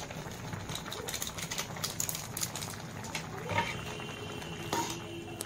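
Maggi noodles simmering in a thin vegetable gravy in a kadai, the liquid bubbling with a steady stream of small pops and crackles.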